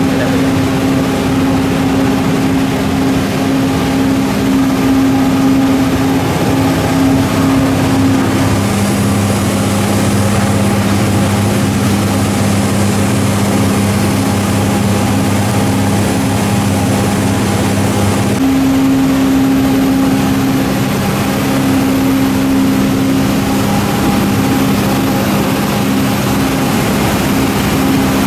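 Steady mechanical drone of running machinery, like an engine or power unit. Its pitch mix changes abruptly about eight seconds in and again about eighteen seconds in.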